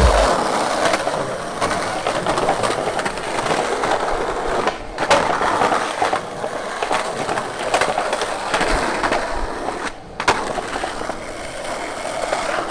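Skateboard wheels rolling over rough concrete pavement, a steady gritty rumble. A couple of sharper clacks of the board come about five and ten seconds in.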